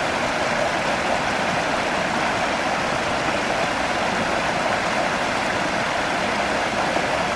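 Shallow creek water rushing over rocks and small rapids in a steady, unbroken rush.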